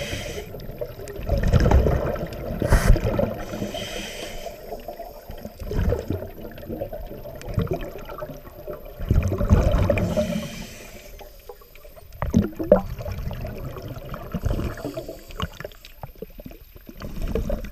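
Scuba breathing heard underwater: regulator exhaust bubbles rumbling and gurgling in surges every two to three seconds, with fainter hissing between them.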